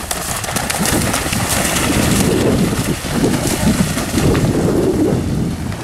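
A ridden horse cantering through a shallow water jump, its hooves splashing through the water in a run of repeated splashes.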